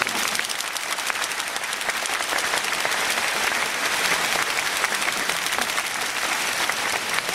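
Large audience applauding, a dense, steady clatter of many hands clapping.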